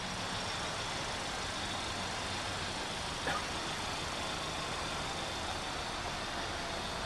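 Steady background road traffic noise with a faint low hum, and a brief faint squeak about three seconds in.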